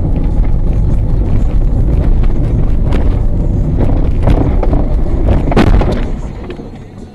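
A car's road and engine noise heard inside the cabin, a loud low rumble on a rutted snowy road. Several sharp knocks come through it, the loudest about five and a half seconds in, and the rumble then fades away.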